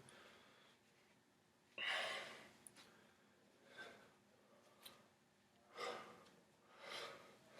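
A man breathing hard while straining to bend a bolt by hand: about four heavy breaths, the first and loudest about two seconds in, with a couple of faint clicks between them.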